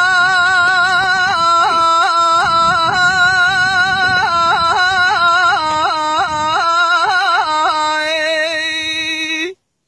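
A man's voice singing one long unaccompanied note in Kurdish folk style, held steady, then quickly wavering up and down in ornaments through the middle, held again and cut off suddenly near the end.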